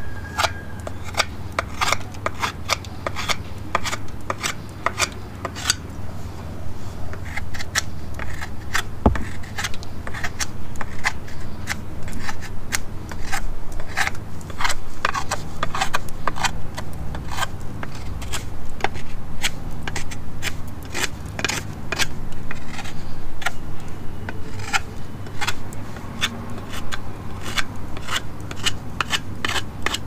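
Victorinox Forester Wood pocket-knife blade whittling a small piece of soft wood: many short shaving strokes, about two a second and faster in spells, over a steady low rumble.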